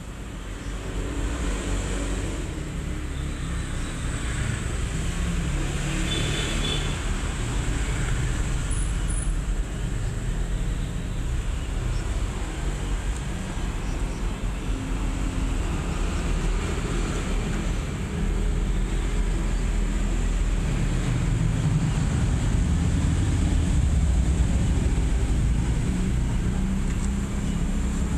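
Steady low rumbling background noise, a little louder after the middle, with no distinct sounds from the cats.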